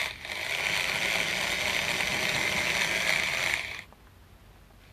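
Cheap electric screwdriver motor unit built into a modified Plarail toy train, spinning its step drill bit against cardboard with a steady mechanical whir; it dips briefly at the start, then runs on and cuts off suddenly about four seconds in.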